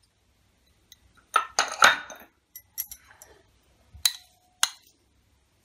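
A few scattered clinks of a steel spoon against a glass mixing bowl, with some light scraping. About four seconds in, a sharp clink leaves a brief ringing note.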